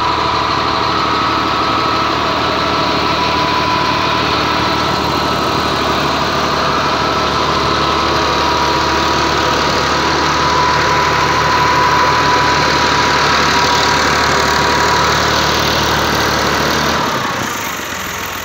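Al-Ghazi tractor's diesel engine running under load, driving a 60-blade PTO rotavator through the soil, with a steady high whine over the engine note. Near the end the whine falls in pitch and the engine sound drops as the machine slows.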